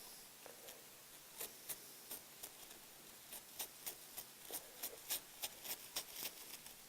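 Scissors snipping through tissue paper: a faint run of short, crisp snips that start about a second and a half in and come faster toward the end.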